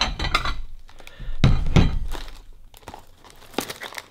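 A cardboard biscuit box and its foil inner bag being handled and opened, with crinkling and crackling throughout. A heavier dull thunk comes about a second and a half in.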